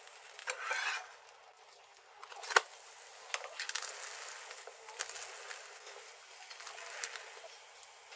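A slotted metal spatula scrapes and presses mochi in a nonstick frying pan, with one sharp knock of the spatula on the pan about two and a half seconds in. Butter crackles lightly under the rice cakes with scattered small pops.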